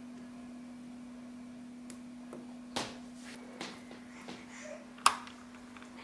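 Neodymium magnetic balls clicking as they snap onto the model: a few scattered sharp clicks, the loudest about five seconds in, over a faint steady hum.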